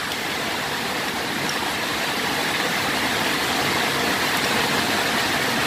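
Steady rushing background noise, with a few faint small clicks.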